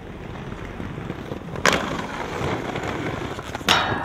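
Skateboard wheels rolling, then a sharp clack about a second and a half in as the board is popped onto a metal railing, a rough scraping grind along the rail, and two more hard clacks near the end.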